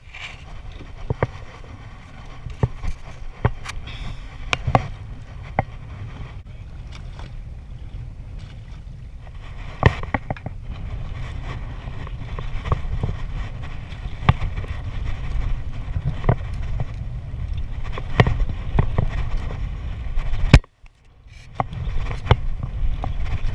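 Wind and water noise on a small boat at sea, a steady low rumble, with irregular knocks and clicks from handling a baitcaster reel, line and the boat's gear. The sound cuts out briefly near the end.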